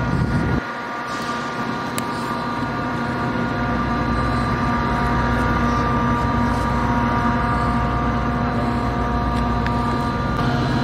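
A diesel locomotive idling on a standing passenger train: a steady engine hum with a low rumble and several held tones.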